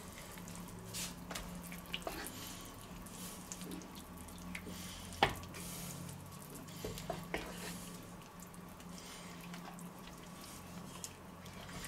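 Tomato sauce with mince, mushrooms and peas simmering in a frying pan, making faint scattered bubbling pops and drips over a low steady hum. A single sharper knock about five seconds in, and a few lighter clicks later, come from a wooden spoon stirring it.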